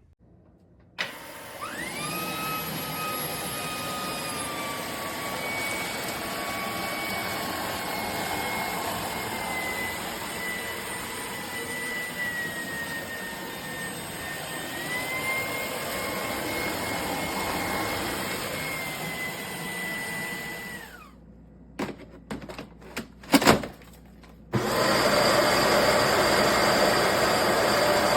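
Cordless Shark stick vacuum switched on: the motor spins up about a second in and runs with a steady high whine that dips and rises slightly in pitch, then winds down after about twenty seconds. A few clicks and knocks follow, and a louder, rougher steady noise starts near the end.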